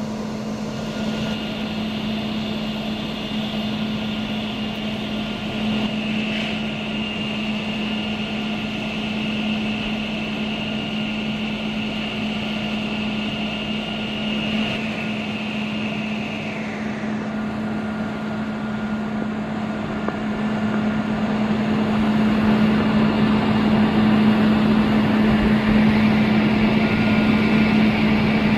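Heavy diesel truck engine, a Cummins ISL9, running steadily with a constant low hum. A high whine rides over it and glides down and stops about 17 seconds in. The engine sound then grows louder from about 21 seconds.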